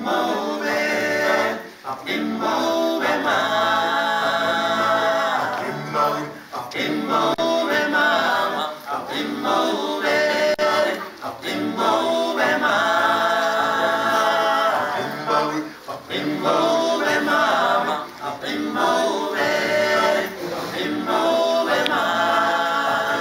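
Male a cappella group singing in close harmony, sustained chords over a steady low bass line, in phrases of two to four seconds with brief breaks between.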